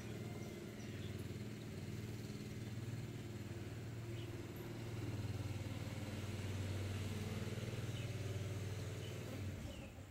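An engine running steadily with a low hum, cutting off abruptly near the end, with faint bird chirps over it.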